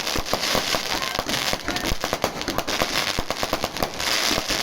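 Fireworks going off in a rapid, dense run of cracks and pops with a crackling hiss, like a crackling or firecracker-style effect.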